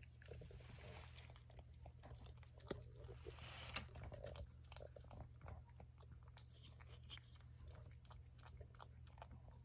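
Domestic cat licking a lickable paste treat (Churu) from a small saucer: faint, quick wet licking clicks, with a couple of slightly louder ticks.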